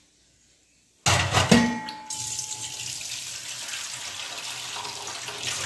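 Kitchen tap turned on about a second in, with a few knocks and splashes at first, then water running steadily into the sink.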